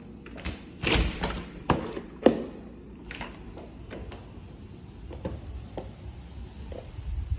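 An exterior door with a knob and deadbolt being unlatched and opened: a quick run of sharp clicks and knocks in the first couple of seconds, the loudest knock just after two seconds in, then a few faint ticks.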